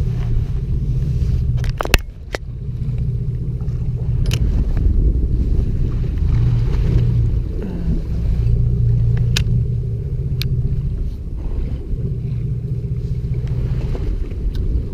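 Fishing boat's engine running with a steady low rumble. A few sharp clicks sound over it, the loudest about two seconds in.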